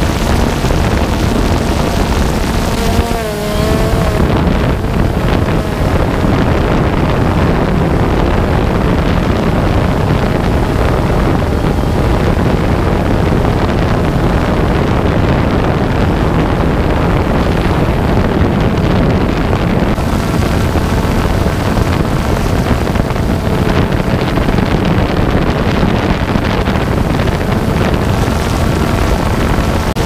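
Camera drone in flight: its propellers hum with a few steady tones under heavy wind noise on the microphone, and the motor pitch wobbles and dips briefly about three seconds in.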